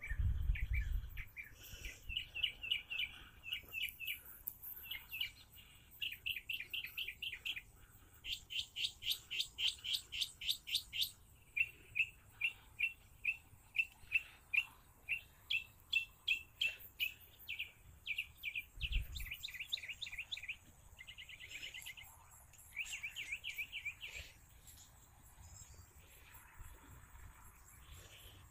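Small birds chirping at dusk: short high chirps repeated in quick runs, then about two a second, fading toward the end. A single low bump comes about two-thirds of the way through.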